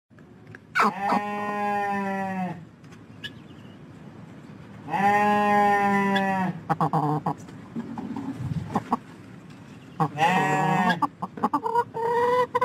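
A hen crying out three times, each a long drawn-out call of one to two seconds that drops in pitch at the end.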